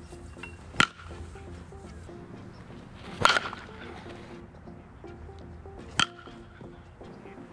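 A baseball bat striking balls three times, about two and a half seconds apart, each hit a sharp crack, over quiet background music.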